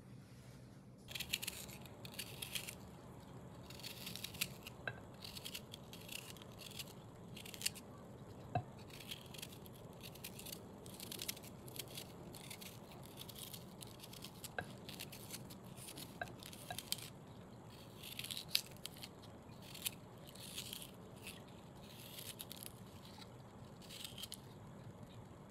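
Small knife cutting the skin off fresh water chestnuts: a run of short, irregular scraping and slicing strokes with the odd sharp click, starting about a second in.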